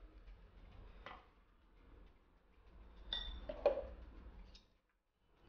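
Faint clinks of a steel spoon against a glass mixing bowl of thick ground urad dal batter: one click about a second in, then a short ringing clink a little after three seconds as the spoon is left leaning on the rim.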